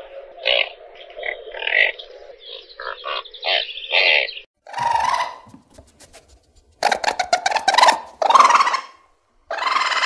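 Birds calling in quick short chirps and calls for about four seconds. After that come a few separate harsh, raspy animal calls, each under a second long.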